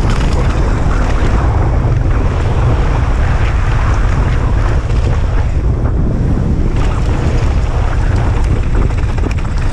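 Strong wind rushing over the action camera's microphone as a downhill mountain bike runs fast down a dirt track, over the steady rumble of tyres rolling on dirt and gravel. Small clicks and rattles from the bike come through at irregular moments.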